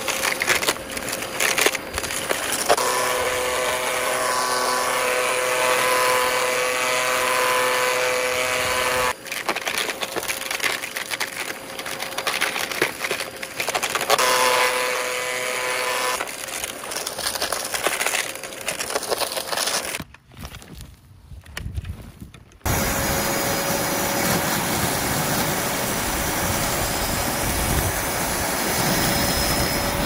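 Dyson DC33 upright vacuum cleaner running over bare dirt: a steady motor whine under loud crackling and rattling as soil and grit are sucked through the head and cyclone. About two-thirds of the way through, the sound cuts out for a couple of seconds, and a steadier rushing noise takes over.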